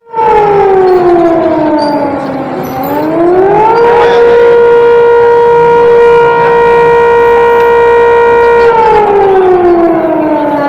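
CRS howler siren sounding the curfew signal: its loud tone falls, climbs back up, holds steady for about five seconds, then starts falling again near the end.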